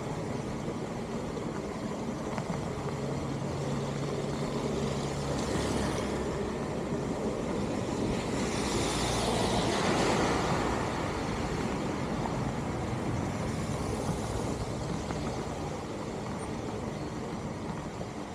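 Steady rain over a flooded street; about halfway through, a pickup truck drives through the standing water, its tyres hissing and splashing in a swell that rises and fades within a few seconds.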